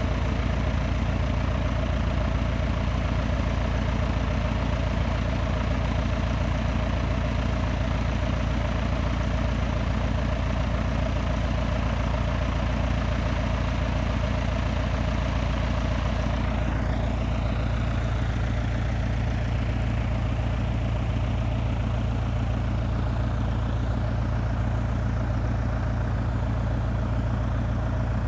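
Steady low drone of an idling engine. Its low hum grows a little stronger a little past halfway through.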